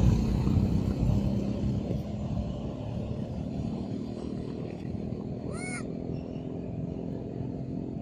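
A motor vehicle engine running nearby: a steady low drone that eases a little after the first couple of seconds. A single short high-pitched call cuts in about five and a half seconds in.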